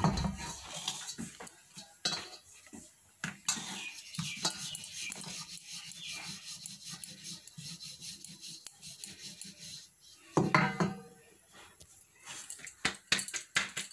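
Wooden rolling pin rolling dough on a round marble rolling board: a low rolling rumble with irregular knocks and clicks as the pin moves and shifts on the stone, louder for a moment about ten seconds in.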